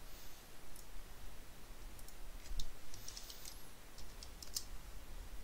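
Computer keyboard and mouse clicks, light and scattered, with a quick run of taps about three seconds in, as a login password is typed in and submitted.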